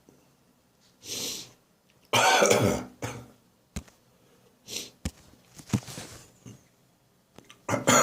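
A person's dry cough, lingering after bronchitis: a breath in about a second in, a loud cough about two seconds in, a few quieter breaths, then another loud cough starting near the end.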